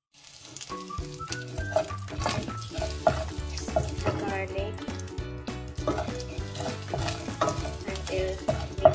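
Chopped garlic sizzling in hot oil in a stainless steel frying pan, with a wooden spoon scraping and stirring it across the pan, over background music.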